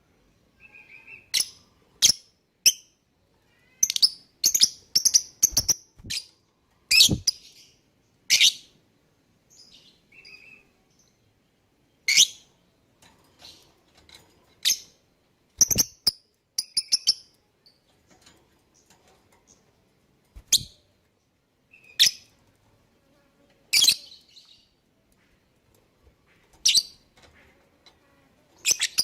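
Lovebirds giving short, shrill, high-pitched chirps, some single and some in quick runs, at irregular intervals with short quiet gaps between them.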